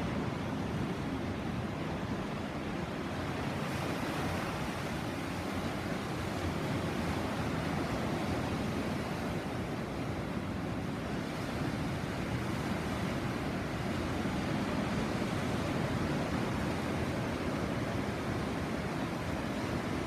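Caribbean Sea surf washing onto the shore: a steady rush of breaking waves that swells and eases slowly.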